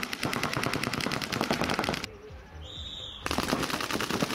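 Paintball markers firing in rapid strings, many shots a second from several players at once. The firing breaks off about two seconds in for about a second, with a short high-pitched tone in the gap, then the rapid shots start again.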